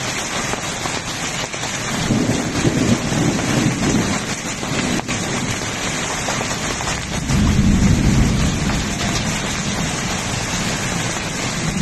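Heavy rain pouring down onto a paved road, a dense steady hiss. Two low rumbles of thunder swell up over it, about two seconds in and again about seven seconds in.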